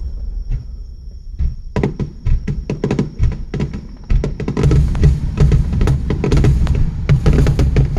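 Fireworks going off: low booms under rapid crackling bangs that start about two seconds in and thicken into a dense, continuous crackle about halfway through.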